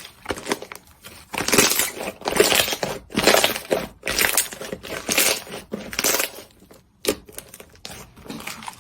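Crunchy slime being squeezed and pressed, crackling in a run of about six short bursts, then a few softer clicks near the end.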